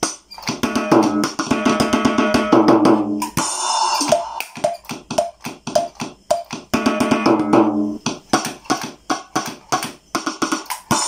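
Portable electronic drum pad's kit sounds through its built-in speaker: quick drum strikes in an even rhythm, mixed with held pitched tones.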